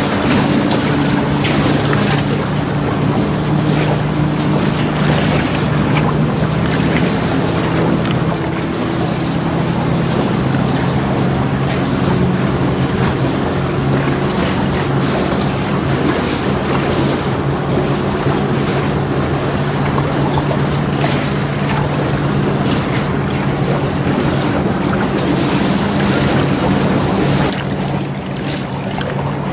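A motor engine running steadily at an even pitch, with wind buffeting the microphone; it eases off slightly near the end.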